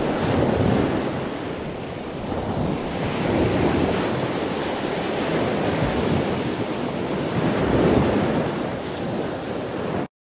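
Choppy sea water washing in a strong wind, with wind rumbling on the microphone; the noise rises and falls and stops abruptly near the end.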